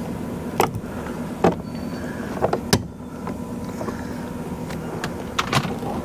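A series of short, sharp plastic clicks and taps, about six, from handling the car door trim panel's plastic clips and wiring connectors by hand, over a steady low hum.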